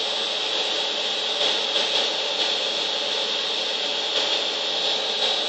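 Household vacuum cleaner running steadily: a constant rushing hiss with a high whine over it.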